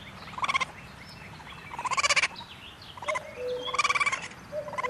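Raccoon chittering: four short bursts of rapid, trilling calls, the longer ones about two seconds apart.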